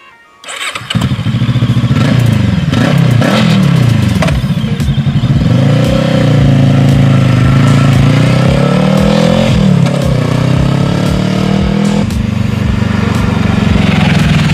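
Voge 500 DS motorcycle's 471 cc parallel-twin engine pulling hard on the road, its note rising and falling repeatedly as the rider accelerates, shifts gear and rides close past. It starts abruptly about half a second in and settles to a steadier note near the end.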